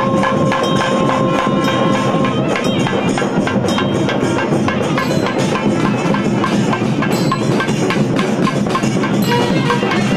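Tamil Amman devotional music in an instrumental passage without singing, driven by busy, rhythmic hand percussion.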